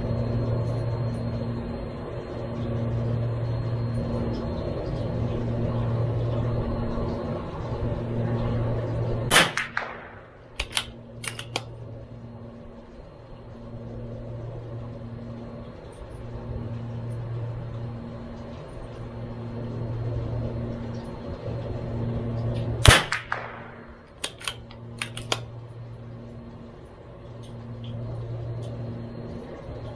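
Two shots from a CZ 457 MTR .22LR bolt-action rifle firing Eley Match, about thirteen seconds apart, each followed a second or two later by a few sharp clicks as the bolt is worked. A low hum that pulses about once a second runs underneath.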